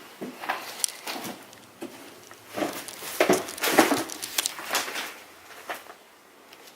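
Footsteps and crunching debris on an old wooden floor: irregular knocks, creaks and crackles, coming thick and loudest about three to five seconds in, then dying away near the end.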